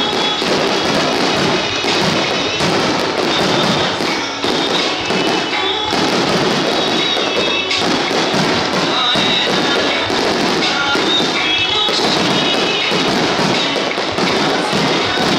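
Aerial firework shells bursting in quick succession under loud recorded music that plays throughout.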